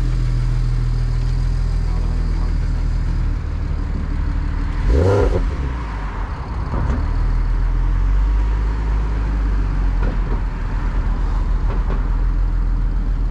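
Tuned BMW 335i's turbocharged straight-six idling with a steady low drone, given one short rev about five seconds in.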